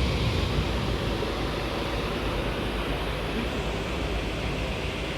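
Steady noise aboard a river cruise boat underway: a low rumble under an even hiss, with no distinct events.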